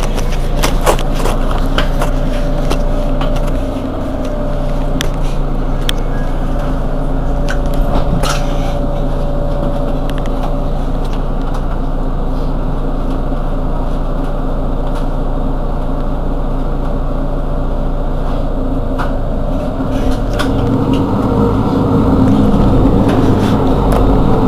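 Mercedes-Benz Citaro G C2 articulated bus's engine idling with a steady low hum and a faint whine, with scattered sharp clicks in the first ten seconds. From about twenty seconds in, the engine note grows louder and heavier.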